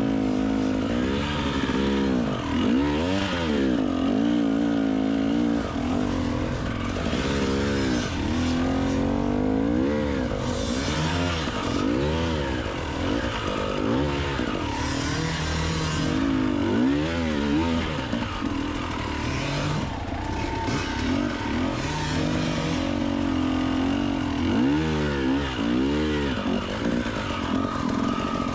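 Enduro motorcycle engine revving up and dropping back over and over, its pitch rising and falling every second or two, as the bike is ridden through rough terrain.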